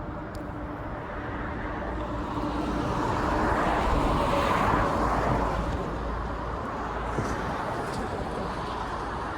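A vehicle passing by outdoors, its sound swelling to a peak about four to five seconds in and then fading back into steady background traffic.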